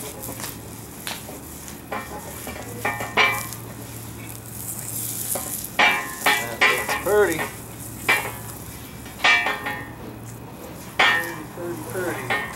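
Wax sizzling as it is rubbed with a cloth into a hot hammer-finished steel plate, the heat cooking the wax finish in. Repeated scuffing strokes of the cloth across the metal, several quick ones in the middle and again near the end.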